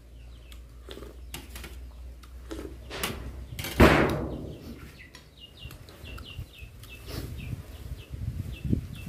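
A man chewing food with small mouth clicks, and one loud knock about four seconds in as a spoon is put down on a metal serving tray. Birds chirp over and over in the background.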